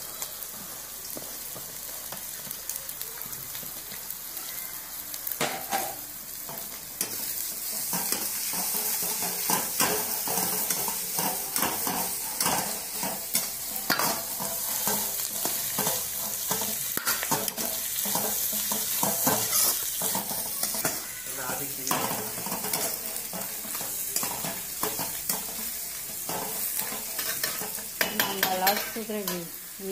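Vegetables stir-frying in a steel wok: a steady frying sizzle with a steel ladle repeatedly scraping and knocking against the pan. The sizzle gets louder about seven seconds in.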